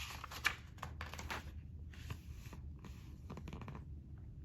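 Faint rustling of paper as a picture-book page is turned and handled, with a few small clicks and taps in the first couple of seconds.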